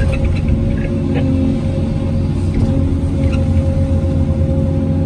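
Hyundai R850LC excavator's diesel engine running steadily at working revs, a deep rumble with a steady whine over it.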